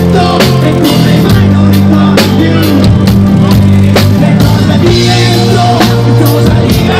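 Live rock band playing loud: drum kit, electric guitar and bass guitar, with a male singer.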